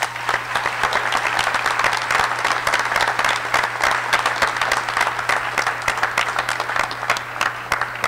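Audience applauding: dense clapping from many hands, over a faint steady low hum.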